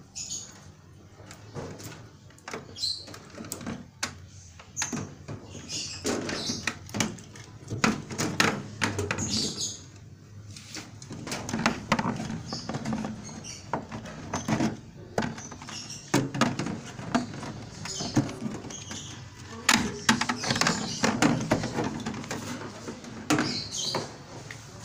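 Irregular clicks, knocks and rustling from hands working the wiring and top panel of an Electrolux tumble dryer during a timer installation.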